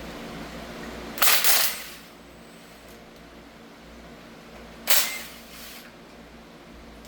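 Two short bursts from a pneumatic shop tool, about three and a half seconds apart, the first lasting about half a second, the second shorter. A steady fan hum runs underneath.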